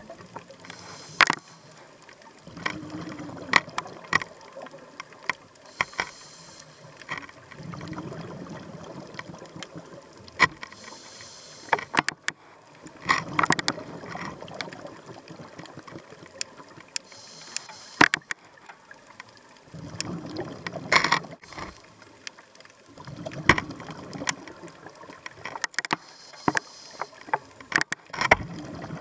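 Underwater sound: a diver's breathing, a hiss alternating with a rumble of exhaled bubbles every five or six seconds, with many scattered sharp clicks and crackles.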